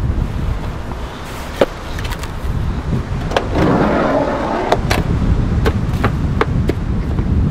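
Strong wind buffeting the microphone in a steady low rumble, with a series of sharp, irregular knocks as split firewood bundles are set down and stacked.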